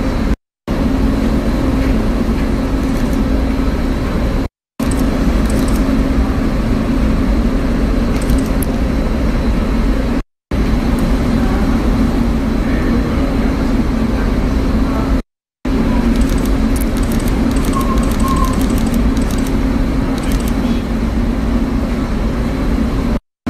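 Loud steady rumble and hum of background noise, broken by brief dead silences where short clips are spliced together.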